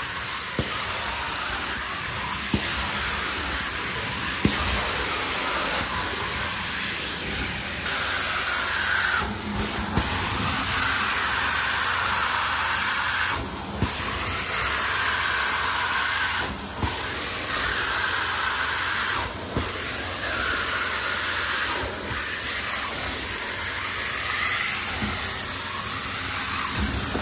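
Carpet-cleaning extraction wand hissing steadily as it sprays water at about 450 PSI into stair carpet and vacuums it back up, with brief drops in the hiss every few seconds between strokes.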